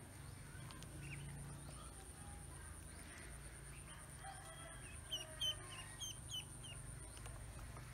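Ducklings peeping: scattered short, high, falling peeps, with a quick run of about six of them a little past the middle.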